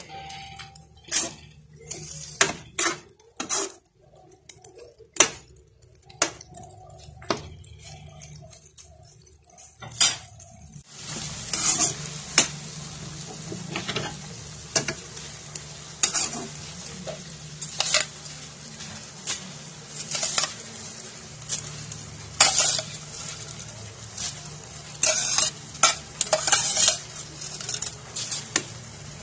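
A metal ladle scraping and knocking against a non-stick wok as chicken is stirred in its sauce, in sharp separate strokes. About a third of the way in, a steady sizzle from the pan comes up under the strokes.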